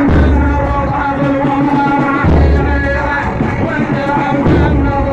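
A male reciter chanting a Shia devotional poem in Arabic, over a deep bass beat that hits about every two seconds.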